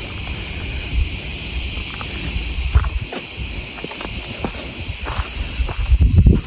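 Steady high-pitched insect chorus, with wind rumbling on the microphone, loudest near the end.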